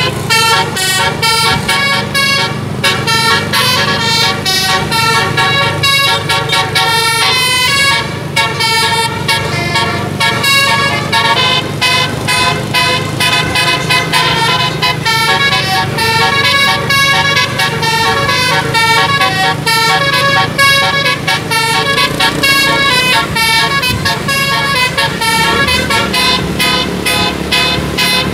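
Bus telolet musical air horn playing a long, fast run of changing melodic notes, with the bus engine's steady low hum underneath.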